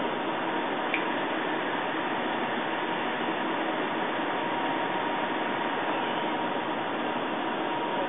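Steady mechanical whir of a SKYLight gamma camera's detector arm drive during an automatic collimator exchange, with a faint steady whine. There is one light click about a second in.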